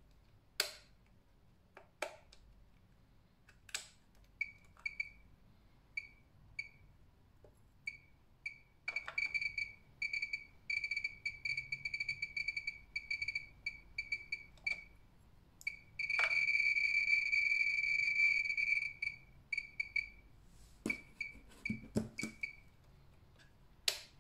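Pripyat RKS-20.03 radiometer beeping for each particle it counts: short high beeps, scattered at first, coming in a rapid stream from about nine seconds in and merging into an almost continuous tone for about three seconds, then thinning out again. A rising beep rate signals more radiation from the watch's radium luminous paint. A few sharp clicks of its buttons are heard among the beeps.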